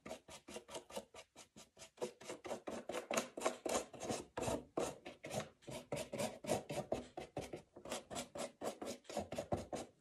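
Paintbrush strokes rubbing over a cardboard drink carton as it is painted: a quick run of short strokes, several a second, with a few brief pauses.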